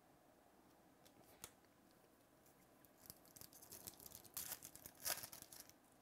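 Foil baseball-card pack wrapper being torn open and crinkled by hand: a quick run of crackles and sharp rips starting about three seconds in.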